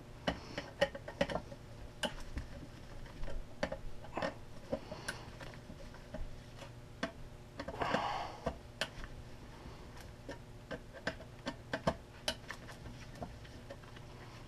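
Irregular small clicks and taps of a screwdriver working the motor terminal screws of a variable frequency drive, as they are loosened, with a short scraping rustle about eight seconds in and a faint steady hum underneath.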